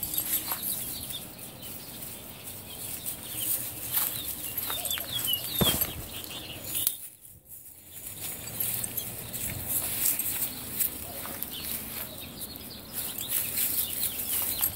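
Rustling and scuffing in grass as dogs move about close by, with a few short high chirps about four to five seconds in and a brief dip to near quiet about seven seconds in.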